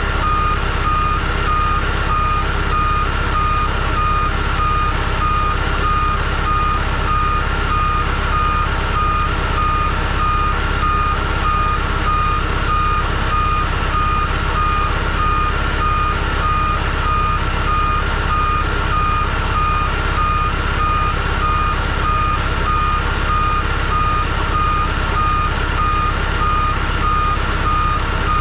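1998 New Flyer C40LF bus's rear-mounted natural-gas engine idling steadily with the engine door open. A high-pitched tone, pulsing rapidly, sounds over the engine.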